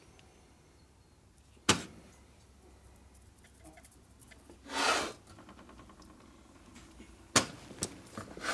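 A few sharp knocks as a Harley ironhead Sportster cylinder is handled against a steel workbench, with a brief rubbing swish of the hand on the part about five seconds in.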